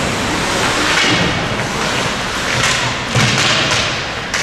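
Ice hockey game play in a rink: skates scraping the ice and dull thuds against the boards, with a sharp knock near the end.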